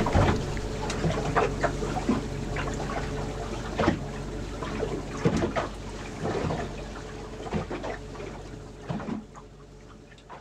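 Engine hum from inside a moving vehicle, steady and low, with irregular knocks and rattles. The whole sound fades out gradually near the end.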